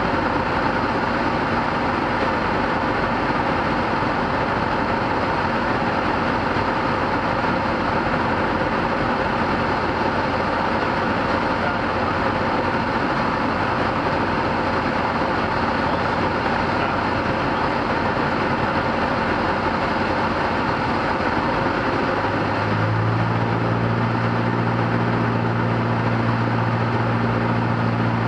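Steady in-cabin drone of a light single-engine propeller airplane's engine and propeller in a descent, heard through the cockpit. About 23 seconds in, a deeper steady hum comes in under it and holds.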